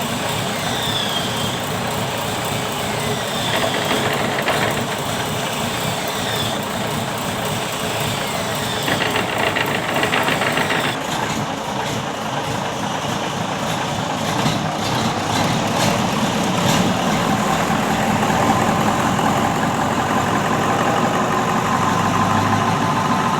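Mitsubishi Fuso 8DC8 V8 diesel engine running, revved up and down in the first half, then settling to a steady run from about eleven seconds in.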